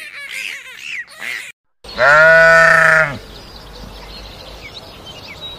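A farm animal bleating: one loud, steady-pitched call lasting about a second, starting about two seconds in. Before it there are quick high gliding chirps that cut off abruptly.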